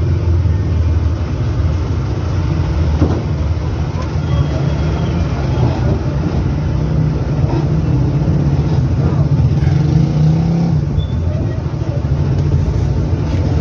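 A steady low rumble with a hum running through it, and faint voices in the background.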